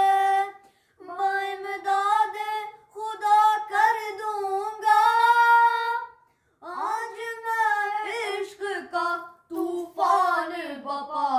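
Boys singing a devotional Urdu manqabat unaccompanied, in long held notes with wavering ornaments. The singing breaks off briefly about a second in and again about six seconds in.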